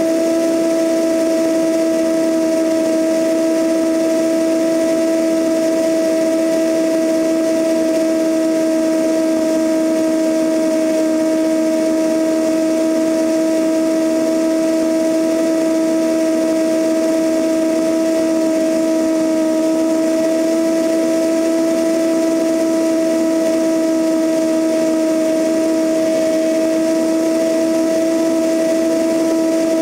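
Cessna 172N's four-cylinder Lycoming engine and propeller running steadily in cruise flight, heard from outside the cabin under the wing with wind rushing past the camera. A steady, unchanging hum with a clear tone and its overtones runs over the wind noise.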